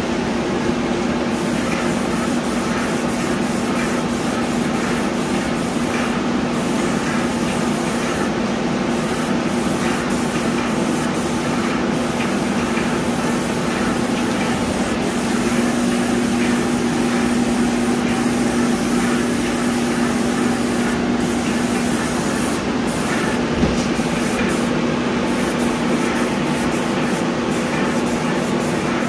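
TriTech airless paint sprayer running with a steady motor hum, the spray gun hissing as it atomises coating, the hiss cutting out briefly again and again as the trigger is released and pulled.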